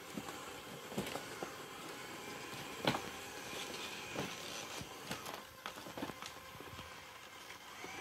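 Xiaomi Robot Vacuum S10 running across a wooden parquet floor: a steady motor and brush hum with scattered sharp clicks and knocks, the loudest about three seconds in.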